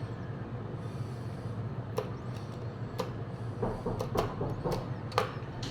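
A handful of sharp, light clicks and taps from handling small camera parts and tools, over a steady low hum.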